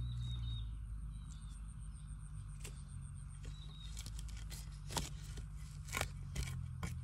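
Digging in soft soil and dry bamboo leaf litter to unearth bamboo shoots: scraping and rustling with several sharp strikes, most of them in the second half. Faint bird chirps can be heard near the start.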